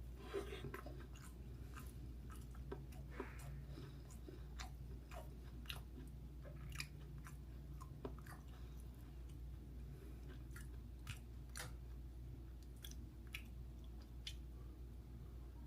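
A person chewing dumplings with the mouth close to the microphone: faint, scattered wet clicks and smacks, irregular through the whole stretch, over a low steady hum.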